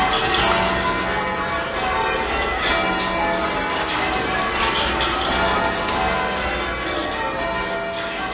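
Church bells rung full-circle in English change ringing, the bells striking one after another in a steady succession over a wash of overlapping ringing tones.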